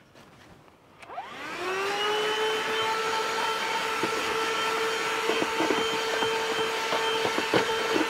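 ThisWorx 12-volt handheld car vacuum switched on about a second in, its motor whine rising in pitch as it spins up, then running steadily with its brush nozzle on the car's floor. A few small clicks and taps sound over the motor in the second half.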